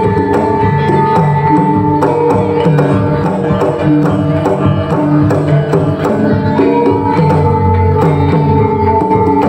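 Javanese gamelan ensemble playing cakilan dance accompaniment: bronze metallophones and gongs ringing in an even, repeating pattern, driven by hand-drum strokes.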